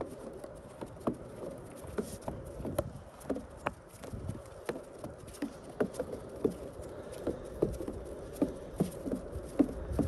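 Footsteps on a thin layer of fresh snow over a wooden boardwalk deck, a person walking with two leashed dogs. The steps are short and sharp, about one to two a second, over a low rumble.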